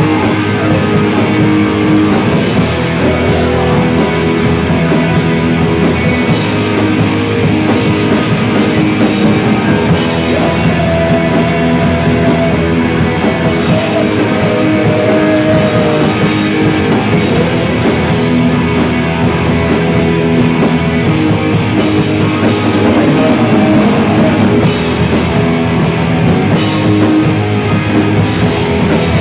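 A heavy metal band playing live: electric guitars, bass and a full drum kit, loud and continuous.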